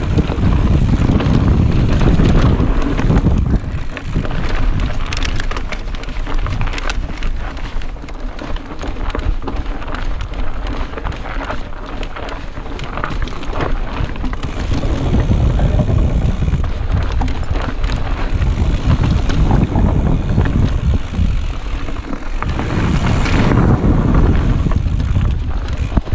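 Wind rumbling on the microphone of a chest-mounted camera on a mountain bike moving along a rocky trail, with the clatter of tyres and bike over rocks and roots. The noise surges and eases with speed throughout.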